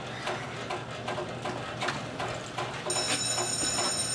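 Irregular light taps, two or three a second, with a thin, steady, high-pitched electronic tone setting in about three seconds in.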